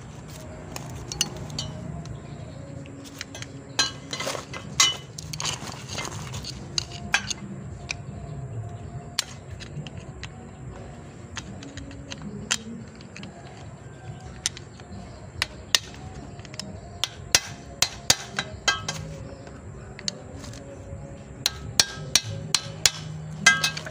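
Hammer tapping a flathead screwdriver to drive the snap rings (circlips) out of a propeller-shaft universal joint: irregular sharp metal taps, some single and some in quick runs, bunched in three spells.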